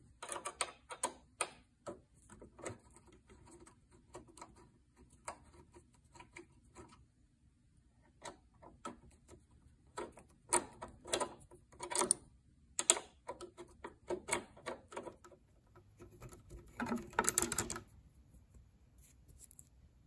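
Irregular metal clicks and ticks of a 5 mm Allen key working the disc brake caliper bolts loose on an electric scooter, with a denser run of clicks lasting about a second near the end.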